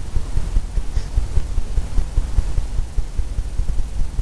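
A low, uneven rumble with a faint hiss above it.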